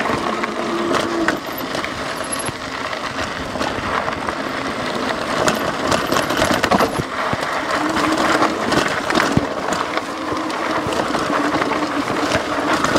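An e-bike's hub motor whining steadily under load on a rough climb in a low gear, over constant clicking, clattering and crunching from the tyres and frame on rocky ground. The whine drops out about a second in and comes back about eight seconds in.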